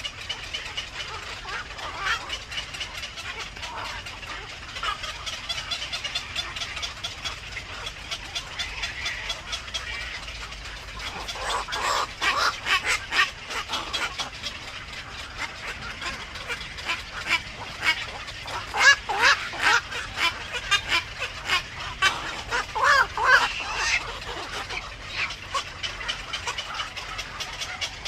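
Black-crowned night herons at the nest giving a rapid clicking chatter that runs on throughout, with three louder bursts of calling.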